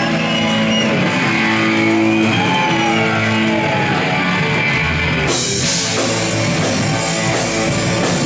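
Live rock band playing loud, electric guitar to the fore with held notes and bends; about five seconds in, crashing cymbals and drums come in with the full band.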